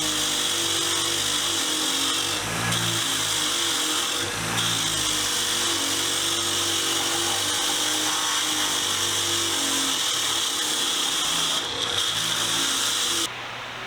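Power-driven wire wheel scrubbing rust and Deox C residue off a small cast vise, a steady high scouring noise with two brief dips early on as the wheel lifts off the metal, cutting off sharply near the end.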